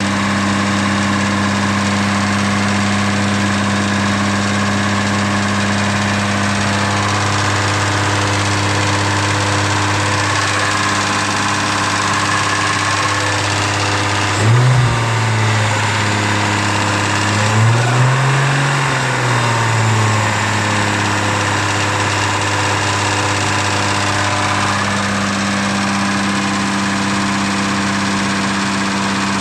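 Lexus IS300's 2JZ-GE inline-six idling steadily, blipped twice: a quick rev about halfway through and a slower rise and fall a few seconds later. The owner hears a rattle from it and asks whether it is rod knock.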